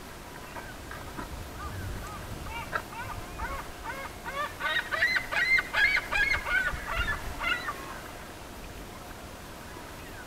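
A flock of waterbirds calling: many short, arching calls overlapping, sparse at first, thickest in the middle few seconds, then thinning out. A faint low rumble lies underneath.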